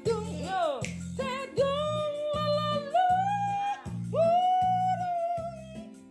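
Music: a sung melody with long held, wavering notes over a bass accompaniment that repeats in even beats.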